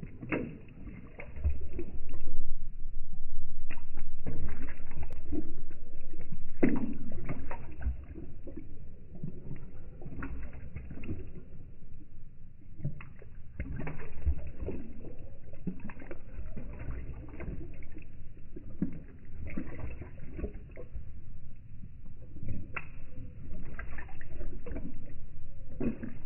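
Saint Bernard puppy lapping water from a bowl, with uneven, slowed-down, low splashes and sloshes. Loudest for the first several seconds, then softer.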